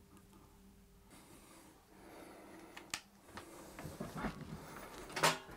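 Faint scratching of a pencil marking a wall, then clicks and knocks from a metal stepladder as a man climbs down it, the loudest knock near the end.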